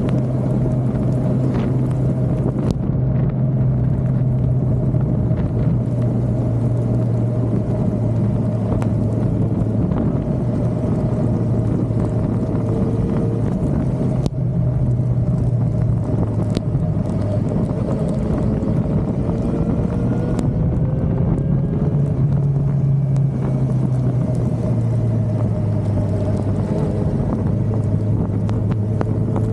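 Suzuki motorcycle engine running steadily at road speed, over continuous wind and road noise. The engine note shifts up and down in pitch a few times as the speed changes.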